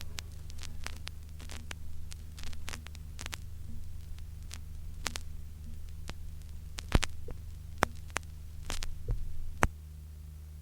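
Vinyl LP playing on after the last track ends, in the groove with no music: a steady mains hum with scattered clicks and pops from the record surface, the pops stopping near the end.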